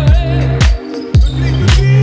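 Funk-style music with a deep kick drum about twice a second under a sustained bass line.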